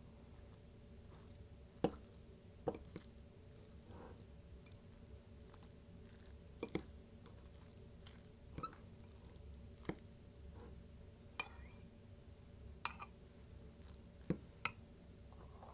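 Close-miked eating sounds: about a dozen sharp, irregular clicks and taps spaced a second or more apart, over a faint steady hum.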